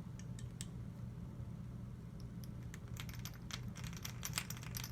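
Small metal parts of a GSG AK-47 .22 LR rifle being handled during disassembly: a run of light clicks and taps that gets busier about three seconds in, over a low steady hum.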